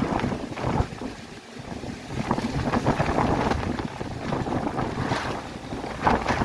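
Typhoon gale winds gusting hard against a plastic-film greenhouse and buffeting the microphone: a loud, rough roar that surges and eases in irregular gusts, with constant irregular rattling and clattering through it.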